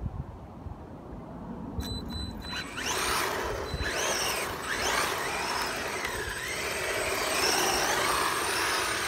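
Maverick Strada RX electric RC car's motor whining, rising and falling in pitch again and again as the car speeds up and slows, with tyre hiss on the tarmac. It is quieter at first and the whine sets in about three seconds in.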